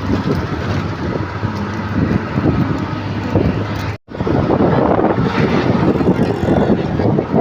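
Train running, a dense steady rumble with wind buffeting the microphone. It cuts out for an instant about four seconds in, then comes back louder.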